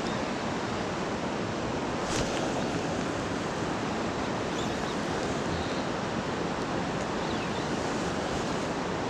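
Steady rush of fast-flowing river water around a wading angler's legs, with a short click about two seconds in.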